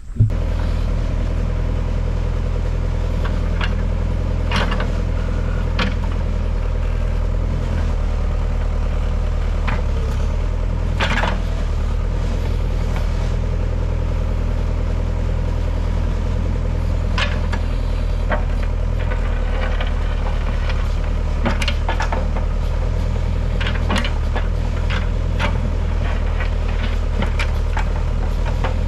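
Backhoe tractor engine running steadily, with short sharp knocks and scrapes scattered over it.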